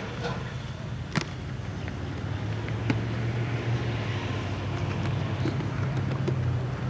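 Two sharp knocks of a basketball on an outdoor court, about a second and a half apart, over a steady low hum that grows a little louder partway through.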